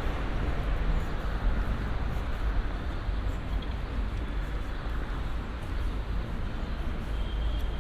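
City street ambience: a steady hum of road traffic with a deep low rumble.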